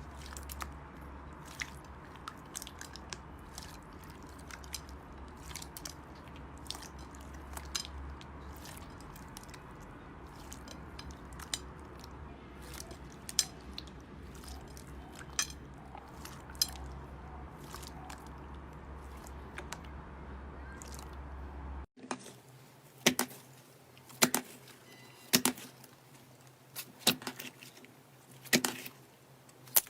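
Slime being squeezed and pressed by hand, with many short sticky clicks and squelches over a low hum. About two-thirds of the way through it cuts to louder squelches roughly every second and a half.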